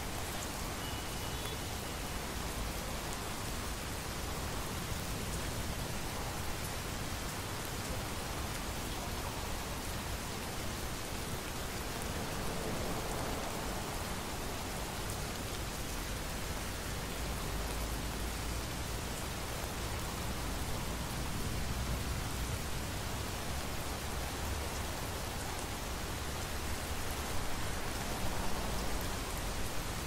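Steady rain from a thunderstorm, an even hiss with a low rumble of distant thunder underneath that swells around the middle.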